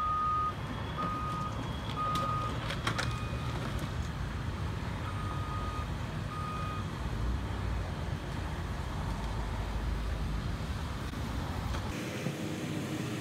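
A CAT excavator's diesel engine runs with a low, steady rumble while a backup alarm gives short half-second beeps, three at first and then two more after a pause. A couple of sharp metallic clanks come about two to three seconds in.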